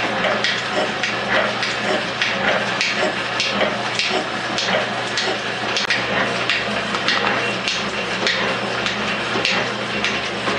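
Metal shaper running while facing a cast-aluminium workpiece: a steady motor hum, with a sharp click-and-scrape on each stroke of the ram, about two strokes a second.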